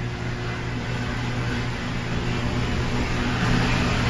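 Steady machinery hum heard inside an overhead crane's cab, a low electrical drone under an even hiss that grows a little louder toward the end.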